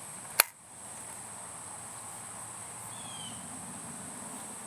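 A single sharp click about half a second in as the Rossi Matched Pair's break-action barrel is snapped shut on a chambered .22 LR round, over the steady high chirring of crickets.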